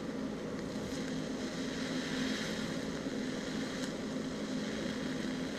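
TIG arc brazing a brass check valve with silicone bronze filler: a steady buzzing hiss from the arc, with a few faint ticks.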